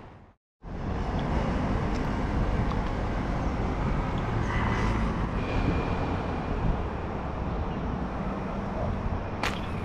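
Steady outdoor traffic noise from an adjacent road, with a single sharp snap near the end as the fishing slingshot is released.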